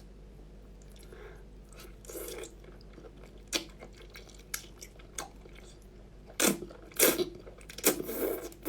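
A person eating close to the microphone: chewing and biting with sharp wet mouth clicks, the bites coming louder and closer together in the last few seconds.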